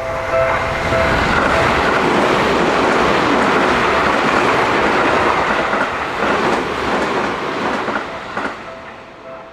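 A train passing through a Japanese railroad crossing, its wheels clacking over the rail joints as it goes by. The crossing's repeating warning bell is heard at the start, is drowned out by the train, and is heard faintly again near the end as the train fades away.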